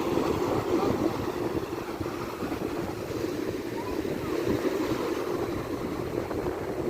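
Sea surf washing onto the shore: a continuous rushing noise that swells and eases slightly, with a low rumble.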